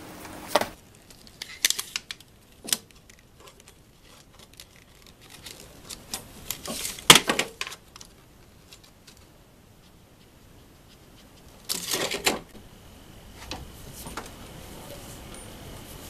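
Scattered clicks, knocks and metallic clatter from hand tools and metal parts handled on a workbench, with a sharp knock about seven seconds in and a short rattle around twelve seconds.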